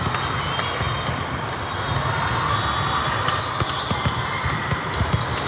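Volleyball gym ambience: balls thudding against hands and the hardwood floor in quick, irregular knocks over the steady din of a large hall.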